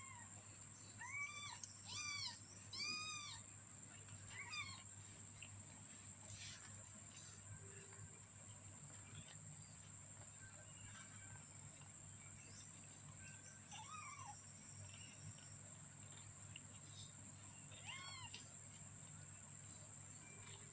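A 15-day-old orange kitten mewing in short, high cries that rise and fall in pitch: a quick run of about five in the first five seconds, then single mews about 14 and 18 seconds in, over a faint steady hum.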